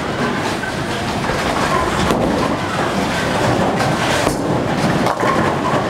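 Bowling ball rolling down a wooden lane, a steady low rumble, with the background clatter of a busy bowling alley and a sharper crash a little over four seconds in.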